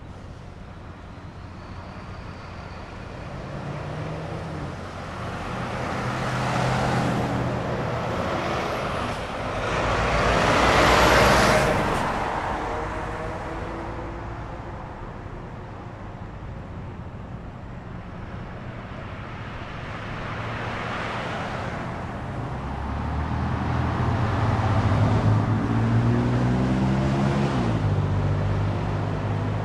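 Road traffic passing: several cars go by one after another, each swelling and fading, the loudest about a third of the way in. Near the end an engine hum builds and holds for several seconds, dropping in pitch shortly before the end.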